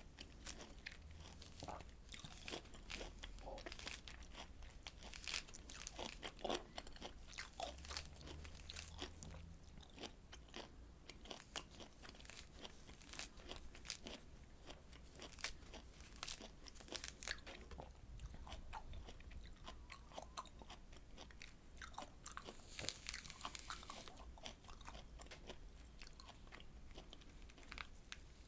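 Close-up eating sounds of juicy citrus fruit: a steady run of wet, crackling bites and chewing.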